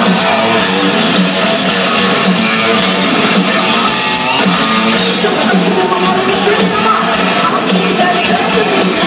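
Loud live hard rock band performance: electric guitars, drums and a male lead singer, heard from among a stadium crowd.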